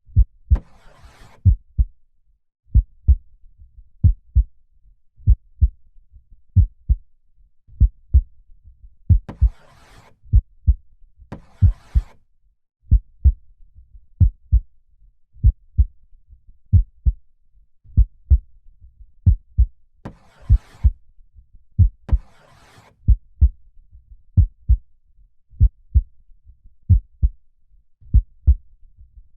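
Slow heartbeat, a double thump (lub-dub) about every 1.3 seconds, steady throughout. Three times, about 11 seconds apart, a slow airy in-and-out breath sounds over it.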